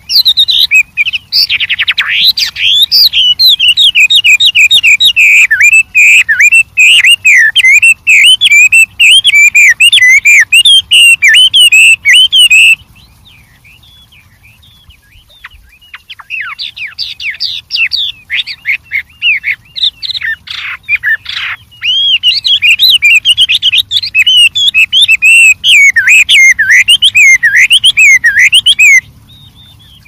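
Chinese hwamei (wambi) singing a loud, fast, varied song of rich whistled phrases. The song breaks off abruptly a little before halfway, returns softer a few seconds later, then loud again until shortly before the end.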